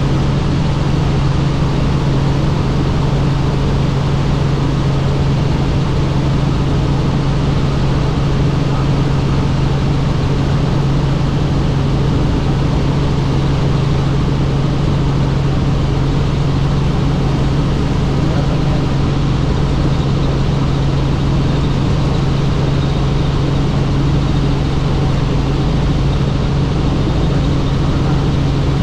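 Helicopter in flight: a steady, loud drone of engine and rotor with a strong low hum that holds one pitch.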